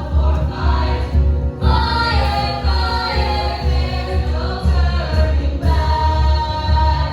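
A group of voices singing together over music with a steady bass beat.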